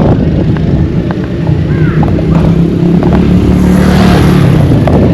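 A motor vehicle's engine running close by: a steady low hum over a rumble, with a rushing hiss that swells around four seconds in as it passes.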